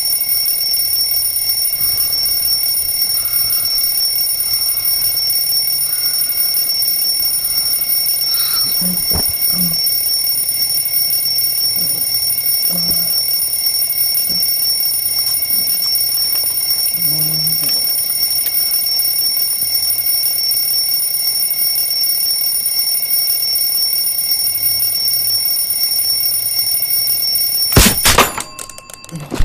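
Alarm clock ringing, a steady high ring that stops suddenly near the end with a loud knock.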